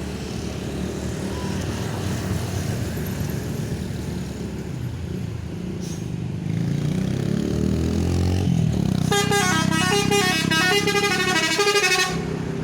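Basuri V3 telolet bus horn playing a quick, stepping multi-note melody for about three seconds near the end, then cutting off abruptly, over the steady rumble of a running bus.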